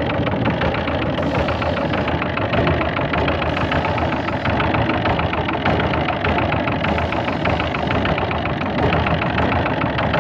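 Fishing boat's engine running steadily under way while trolling, with an even, rapid beat.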